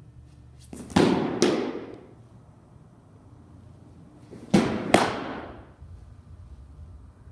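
Softball pitches caught by the catcher: two pitches, each heard as a pair of sharp smacks less than half a second apart, the ball popping into the catcher's leather mitt, with echo off the hard walls of an indoor training facility.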